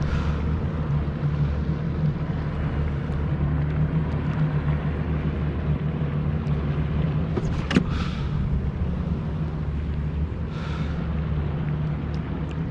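A steady low motor drone, with a single sharp click about eight seconds in.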